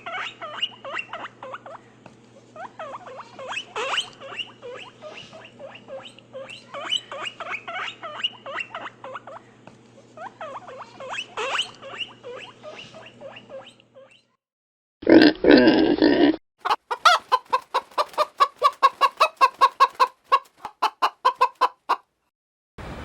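A run of animal calls from different animals. For about fourteen seconds there are many short, squeaky calls rising and falling in pitch over a low hum. Then comes a brief loud call, followed by a rapid series of short calls at about five a second.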